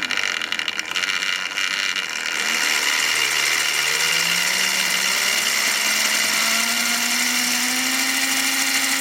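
Tri-ang Hornby Coronation Scott model locomotive running on track: rattling clicks for the first two seconds, then a steady running noise with the electric motor's whine rising slowly in pitch as the loco picks up speed.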